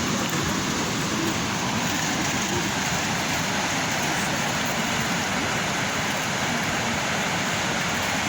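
Sea waves rushing steadily, a continuous even roar of surf.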